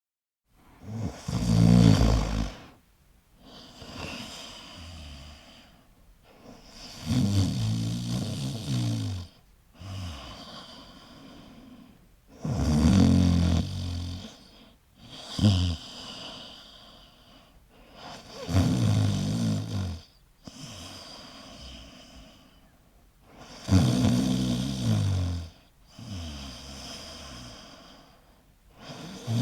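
A person snoring in slow, even cycles: a loud, low, rattling snore followed by a quieter breath, repeating about every five and a half seconds, five times over.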